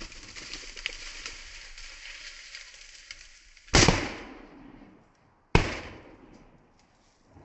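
Two shotgun shots just under two seconds apart, each trailing off in a fading echo, after a few seconds of steady noise.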